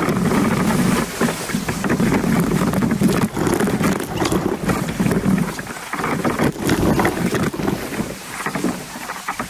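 Rushing, splashing river water around a paddled tandem kayak running shallow rapids, with paddle splashes and knocks and wind buffeting the boat-mounted microphone.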